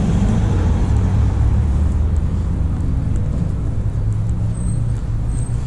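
Steady low rumble of street traffic, a motor vehicle running close by.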